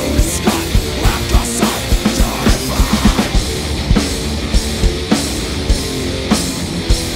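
Heavy metal band playing: a distorted electric guitar riff over a drum kit, with loud, regular drum hits about three times a second.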